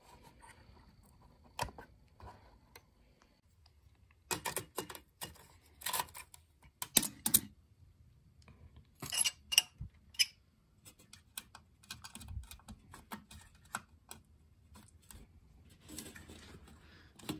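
Scattered small clicks and taps of an EPROM chip being handled and pushed into its socket on a Commodore 1526 printer's circuit board, in several short clusters.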